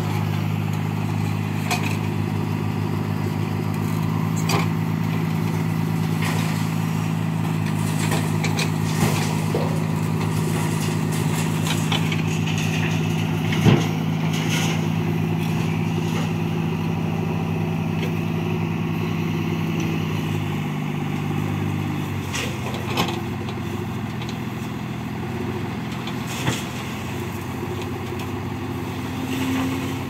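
Tata tipper truck's diesel engine running steadily while it drives the Hyva hydraulic hoist that lifts the loaded body to dump mud. The engine note steps down about two-thirds of the way through, with a few short sharp knocks along the way.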